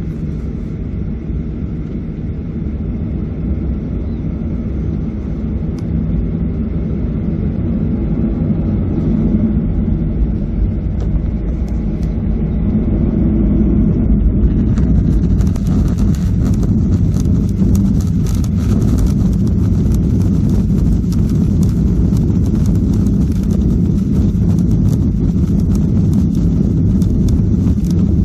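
Jet airliner's engines and rolling noise heard inside the cabin: a steady low rumble that grows gradually louder as the plane moves along the runway. About halfway through, a hiss and light rattling join in.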